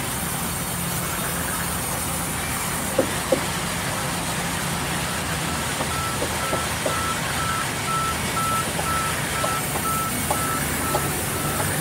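Large sawmill band saw running, a steady machine hum with noise. There are two knocks about three seconds in, and from about halfway a high beep repeats about twice a second.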